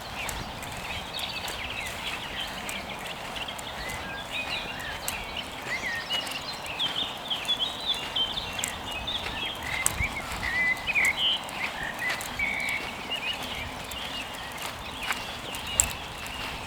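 Several birds chirping and twittering in short, quick notes, busiest in the middle, over footsteps on dry leaves.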